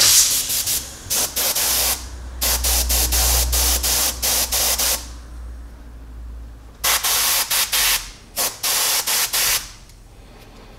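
Compressed air hissing out of a siphon-feed airbrush in short bursts as the trigger is pressed again and again, with the air regulated to about 40 PSI. A run of quick bursts comes first, then a pause, then another run of about six bursts about seven seconds in.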